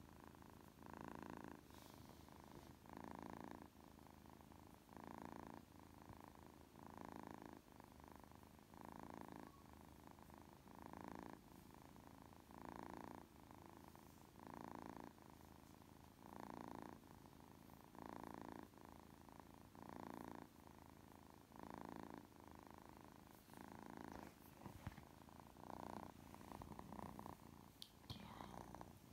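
A kitten purring steadily as it dozes, the purr swelling louder about every two seconds with each breath. A few light rustles near the end.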